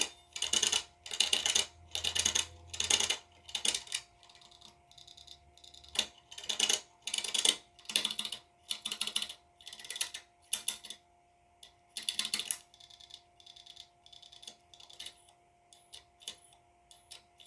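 Opened hard disk drive running on power with its platter spinning: the head actuator arm chatters and clicks in repeated bursts about every half second, thinning out and slowing near the end, over a faint steady hum. This is a corrupted drive that will not initialise.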